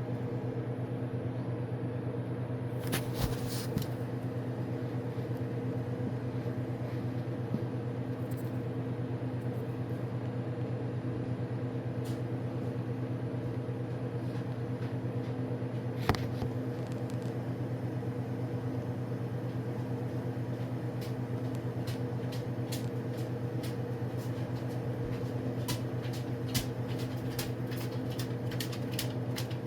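A steady low mechanical hum with a few faint clicks scattered through, the sharpest about sixteen seconds in.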